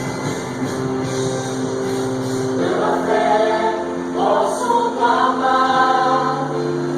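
Gospel song: held instrumental chords, then a group of voices singing in harmony enters about two and a half seconds in.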